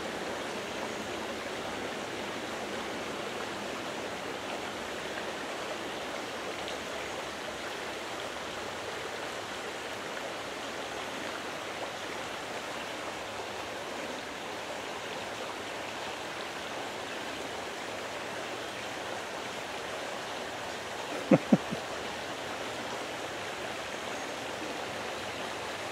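Creek water flowing steadily, an even rushing hiss. About 21 seconds in come two short, sharp sounds close together.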